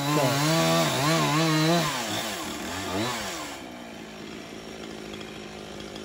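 Chainsaw running at high revs with its pitch wavering up and down, then falling back to a steady idle about three and a half seconds in.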